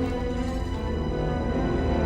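Dark, tense orchestral film-score music with sustained tones.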